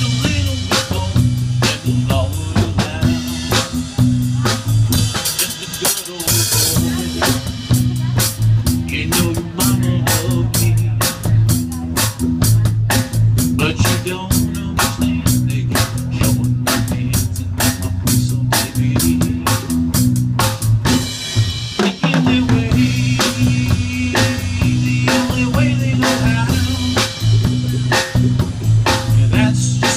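Live band playing an instrumental break: strummed acoustic guitar over bass and a drum kit keeping a steady snare and rimshot beat, with a short break about two-thirds of the way through.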